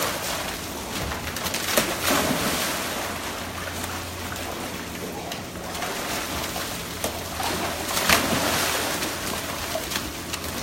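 Dogs swimming in a pool: continuous water splashing and sloshing, with louder splashes about two seconds in and again near eight seconds.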